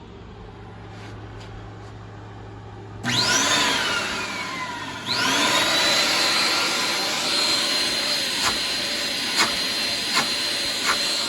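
Electrolux central vacuum power unit starting up about three seconds in with a rising whine, dipping, then starting again and running steadily with a loud rush of exhaust air and a high whine. The exhaust is really loud. A few short clicks come near the end.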